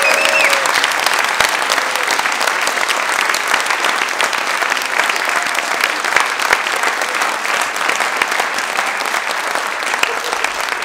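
Theatre audience applauding: many hands clapping in a dense, steady patter that eases off slightly near the end.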